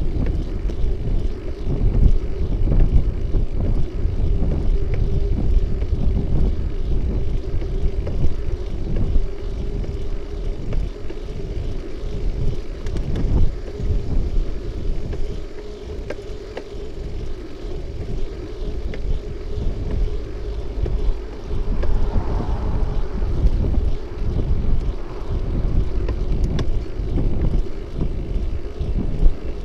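Wind buffeting the microphone of a camera on a moving bicycle, with the rumble of the tyres on the road and a steady hum.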